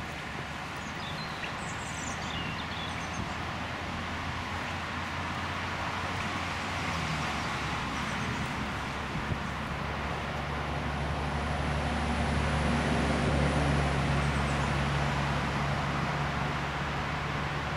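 Low, steady motor-vehicle hum that grows louder towards the middle and eases off again, over a broad outdoor noise haze, with a few faint bird chirps in the first few seconds.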